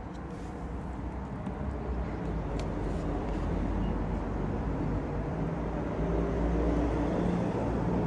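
Steady low rumble of road traffic or a vehicle engine that slowly grows louder. In the first few seconds there are a few faint clicks from a paper cup and its lid being handled.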